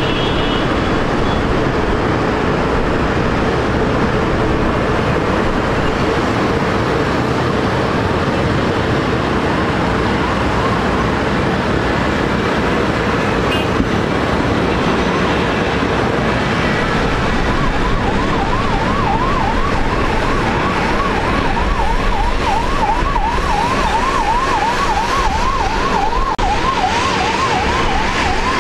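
Jet engines of an Ilyushin Il-76TD cargo plane, four Soloviev D-30KP turbofans, running loud and steady as the aircraft moves along the runway. A siren wails in faintly about ten seconds in, then switches to a quick up-and-down yelp, about two cycles a second, for the last ten seconds.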